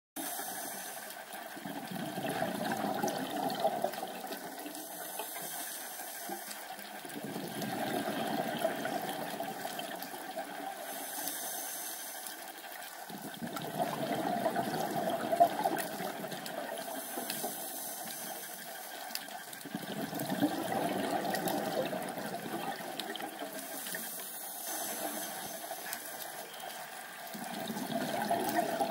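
Underwater scuba breathing through a regulator: a short hiss on each inhale, then a longer rushing rumble of exhaled bubbles, repeating about every six seconds.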